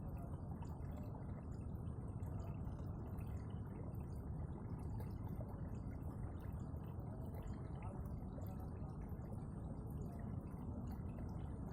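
Running water flowing steadily, an even, muffled wash with little sound above the middle range.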